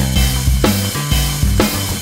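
Background music with a steady drum beat, about two beats a second, over a held bass line.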